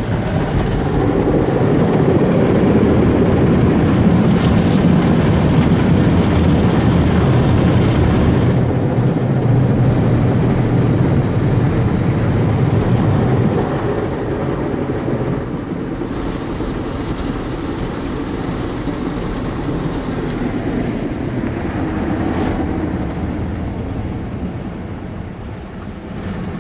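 Automatic car wash machine running over the car, heard from inside the cabin: water spraying on the body and glass over the machine's rumble. It is loud for about the first half, then noticeably quieter about halfway through.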